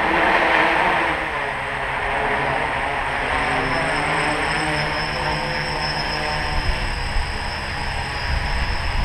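The electric motors and propellers of a small 3D-printed tricopter buzzing in flight overhead. The pitch wavers up and down as the throttle changes.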